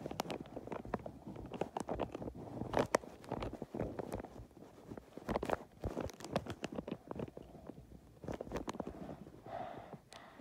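Wrapping paper and sticky tape being handled while a small present is wrapped: irregular crinkles, rustles and sharp little crackles.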